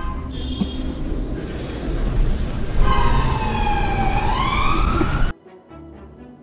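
Emergency vehicle siren wailing over road and engine noise, its pitch falling and then rising, cut off sharply about five seconds in.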